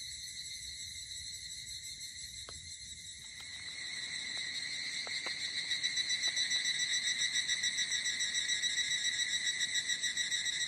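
Evening insects trilling steadily in a fast, pulsing rhythm, growing louder about a third of the way in. A few faint crackles from a wood campfire in the first half.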